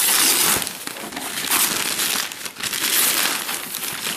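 Tissue paper crinkling and rustling as it is pulled and crumpled out of a cardboard box, in several loud surges.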